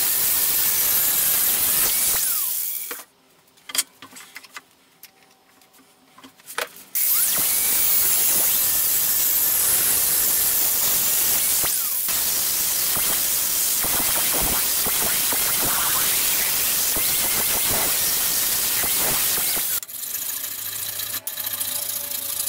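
Angle grinder cutting a small piece of brass plate held in a vise. It runs for about two seconds, stops for about four, then cuts again for about thirteen seconds. Near the end a hand file rasps across the metal.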